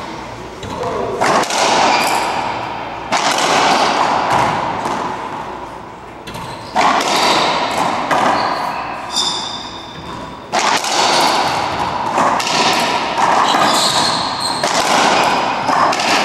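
Racquetball rally: the hollow rubber ball smacking off racquets and the court walls again and again, each hit ringing in the enclosed court, with short high squeaks from sneakers on the hardwood floor.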